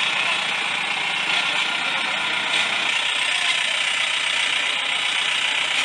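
Vehicle engine running close to the microphone, a steady, even rattling noise.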